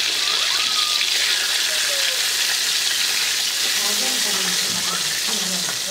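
Poa fish frying in hot oil in a steel karahi: a steady, even sizzle.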